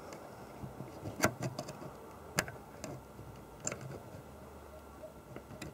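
Faint handling clicks on a circuit board as a loose transistor is wiggled in its solder joints, with three sharper clicks about a second apart.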